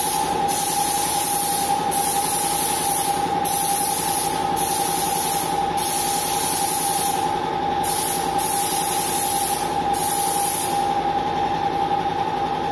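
Air compressor running steadily to feed a paint spray gun: a constant mechanical hum with a high whine over a hiss of air.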